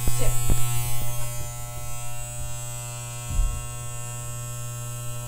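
Corded electric dog grooming clippers running with a steady buzz as they are worked over a dog's curly, matted coat, seemingly without cutting much. A few short knocks near the start and a soft thump a little past halfway.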